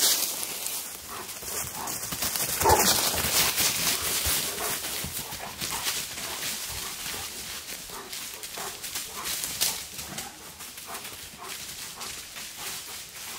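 A dog close by, with many short clicks and scuffs.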